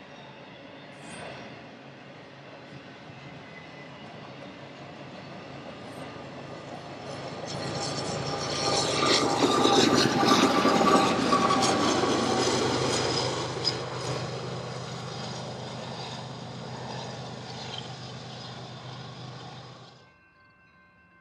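Intermodal freight train cars loaded with containers and highway trailers rolling past, steel wheels rumbling and clattering on the rails. The noise swells to its loudest about halfway through, eases off, then cuts off suddenly near the end to a faint background.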